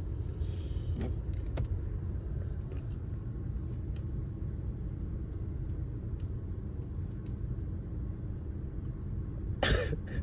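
Steady low rumble of a car running, heard from inside the cabin, with a few faint clicks and one short loud burst near the end.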